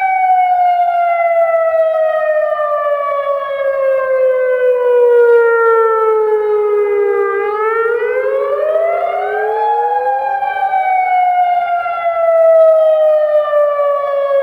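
Federal Signal Modulator 6048 outdoor warning siren sounding the wailing Attack signal. Its layered tone falls slowly in pitch for about seven seconds, rises quickly over about two seconds, then falls slowly again.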